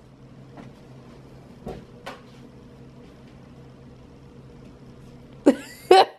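Light knocks of household things being handled, then a louder clatter near the end that fits a kitchen cupboard door opening or closing, over a low steady hum.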